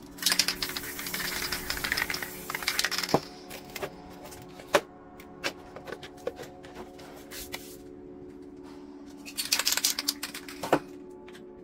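Spray paint can at work: about three seconds of rapid rattling clicks mixed with hiss, then a few scattered single clicks, and a second shorter burst near the end, over quiet background music.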